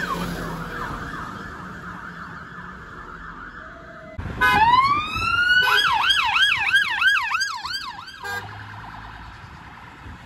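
A siren yelping and fading away over the first few seconds. About four seconds in, a police car's siren starts with a rising wail and switches to a fast yelp, about three rises a second, then cuts off suddenly after about four seconds.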